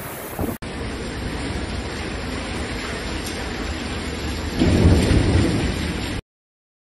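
Heavy rain pouring down steadily, with a low rumble of thunder about four and a half seconds in. The sound cuts off abruptly near the end.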